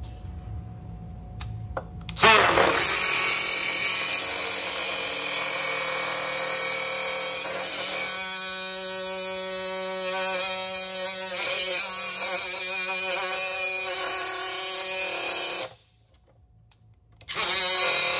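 Handheld electric power tool running. It spins up with a rising whine about two seconds in, runs at a steady speed with a high hiss for about thirteen seconds, cuts off suddenly, and starts again near the end.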